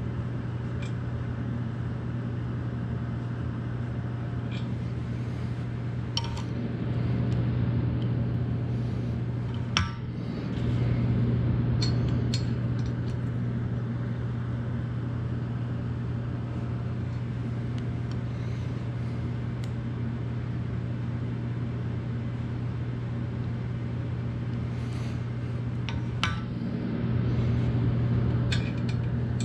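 A steady low mechanical hum runs throughout and swells louder for a few seconds at a time. Over it come scattered light metal clicks and taps as a T-handle telescoping bore gauge is set and worked inside a cast axle bore; the sharpest click is about ten seconds in.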